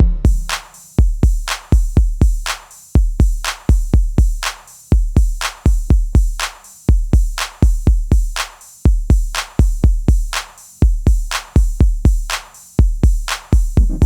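Background music: an electronic drum-machine beat of deep kick drums and crisp hi-hat-like clicks, without melody.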